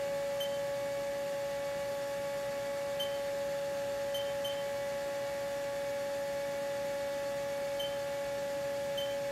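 2012 Haas OL-1 CNC lathe running, giving a steady high-pitched whine that holds one pitch. A few short faint chirps sound over it at irregular intervals.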